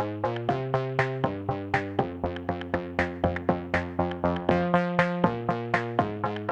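Electronic music with a steady beat of about four hits a second under sustained synthesizer chords.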